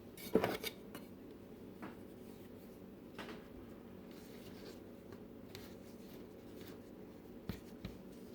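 Small scraping and tapping sounds of rolled cinnamon-roll dough being cut on a board, loudest in a quick cluster just after the start, then scattered light ticks over a steady low hum.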